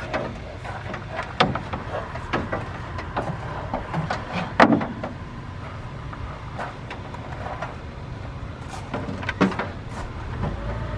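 Clicks and knocks of battery charger clamps being handled and clipped onto a truck battery's corroded terminals, a string of sharp taps with the loudest knock about halfway through. Near the end a steady hum comes in as the charger starts charging.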